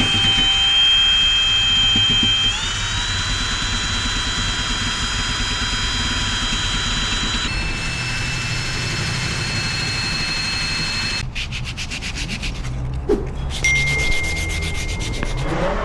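Handheld power tool sanding down a motorcycle backstep cover: a steady high motor whine that steps up in pitch about two and a half seconds in and shifts again midway, turning to a rapid rasping grind in the last few seconds.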